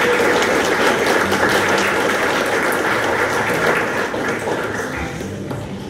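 Audience applauding, a dense spread of handclaps that tapers off toward the end.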